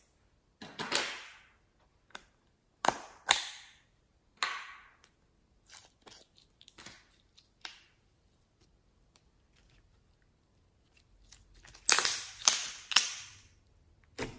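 Glitter slime being squeezed and stretched by hand, making a series of sharp wet pops and clicks, scattered through the first eight seconds, with a denser, louder run of pops about twelve seconds in.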